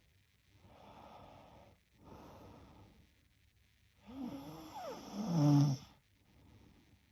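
A sleeping girl breathing heavily twice, then snoring louder about four seconds in, the snore's pitch wavering and ending in a deeper tone.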